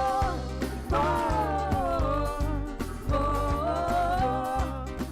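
Band music: a gliding melody line in phrases over a steady bass and drum beat.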